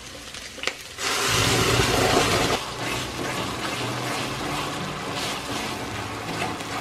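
Wet onion paste hitting hot oil in a steel kadai: a sudden loud sizzle about a second in, easing after a second or two into a steady, quieter frying sizzle as the paste is stirred.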